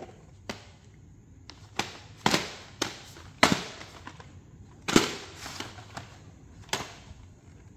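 Plastic VHS cassettes and their cases being handled: a run of about seven sharp plastic clicks and clacks at uneven intervals, with light rustling between them.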